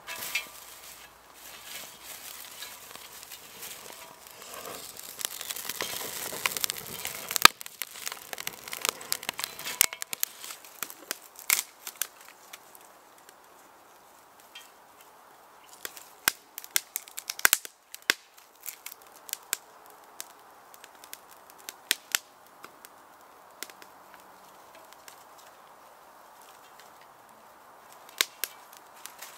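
Dry grass tinder bundle catching fire: a dense crackling hiss for the first several seconds as it flares up, then sparser sharp crackles and snaps as kindling twigs are added to the young fire.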